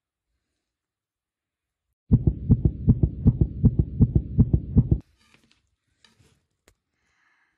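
Deep rhythmic thumping, about four beats a second, that starts suddenly about two seconds in and cuts off just as suddenly about three seconds later. Then come a few faint clicks and scrapes.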